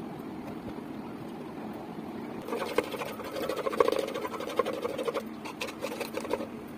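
Steel kitchen containers rattling and clinking as cream is worked into homemade butter, a steady clatter that grows louder with many small metal clinks about two and a half seconds in.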